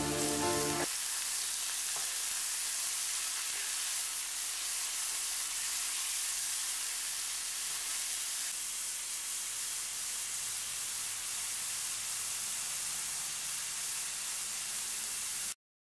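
Carrots and onions sizzling steadily in oil in a Parini 304 stainless steel sauté pan while being stirred with a wooden spatula. The sizzle cuts off abruptly just before the end.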